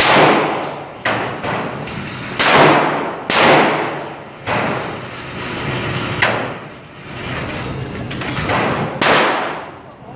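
Gunshots inside an indoor shooting range: about eight loud shots at irregular intervals, each echoing off the range walls with a long tail.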